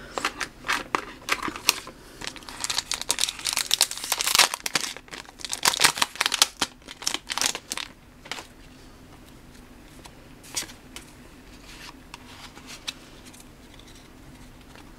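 A Pokémon card booster pack wrapper crinkling and being torn open, with dense rustling for about the first eight seconds, then only a few light handling sounds.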